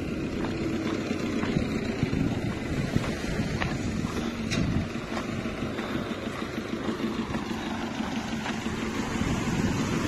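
Wind rumbling on the microphone over surf washing up the beach, with a faint low hum from a tractor engine.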